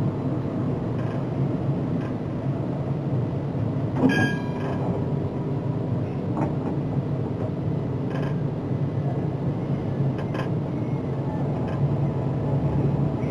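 Tram running slowly out of its depot, heard from the driver's cab: a steady electric drive hum and rolling rumble. A brief high ringing tone comes about four seconds in, and a couple of sharp clicks follow later.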